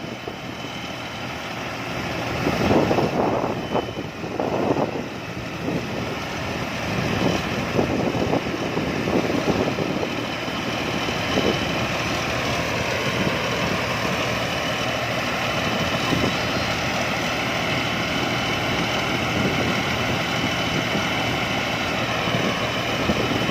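Rice combine harvester's engine running steadily, with a faint high steady whine. The sound swells louder a few times in the first few seconds.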